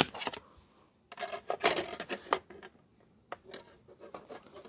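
Plastic clicks and rattles as a DVD is pried off the hub of its case and set onto the spindle of a portable DVD player, with a sharp snap at the start and a scatter of lighter clicks after.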